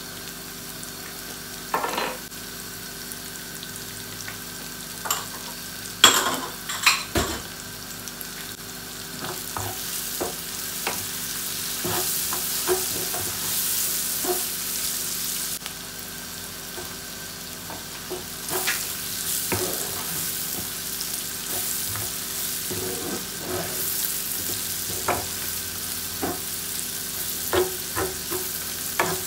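Food sizzling in hot oil in a pan while a cooking utensil stirs it, scraping and knocking against the pan. The knocks are loudest about six seconds in.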